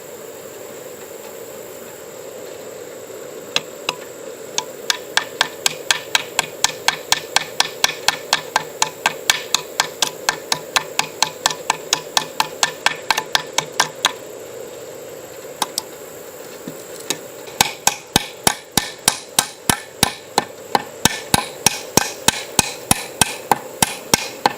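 A hammer rapidly tapping nails into wood, about three or four quick strikes a second, in two long runs with a pause of a few seconds between them.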